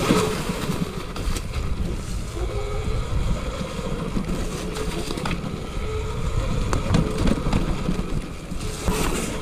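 Eride Pro SS electric bike ridden over a trail: steady tyre and trail rumble with wind on the microphone and scattered knocks over bumps, and a faint motor whine that comes and goes.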